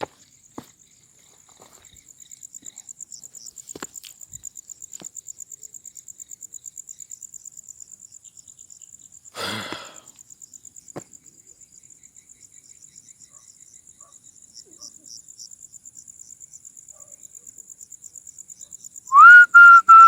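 Crickets chirping in a steady, fast trill. Near the end come several short, loud, high-pitched cries, which the group takes for dogs starting to howl.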